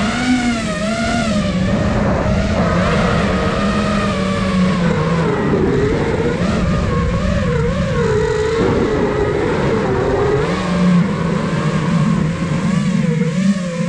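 iFlight Nazgul Evoque F5 HD 5-inch FPV quadcopter's brushless motors and propellers whining in flight, the pitch constantly wavering up and down as the throttle changes.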